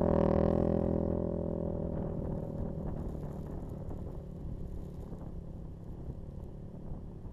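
KTM 450 EXC single-cylinder four-stroke dirt bike engine, its loud, steady note fading away over the first couple of seconds and leaving a low, uneven rumble.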